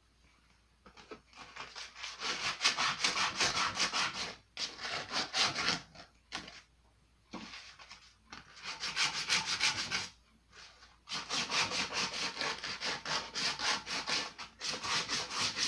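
Quick back-and-forth scraping strokes of hand abrading on a steel blade, several strokes a second, in four bouts with short pauses between. The blade has had its heat treatment taken off and is being shaped by hand.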